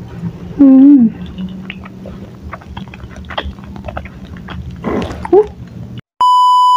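Close-up chewing of chewy tapioca-flour meatballs, with many small wet mouth clicks; two short, loud pitched calls cut in, about half a second in and again about five seconds in. Near the end the sound drops out for a moment and a loud steady beep starts, the tone that goes with TV colour bars.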